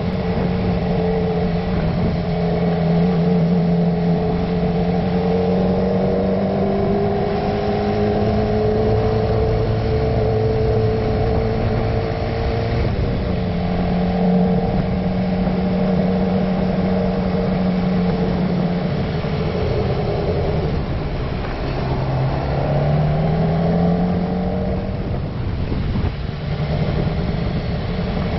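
Motorcycle engine heard from on board, running steadily at low road speed. It drops back about twenty seconds in, then rises in pitch as it pulls away again.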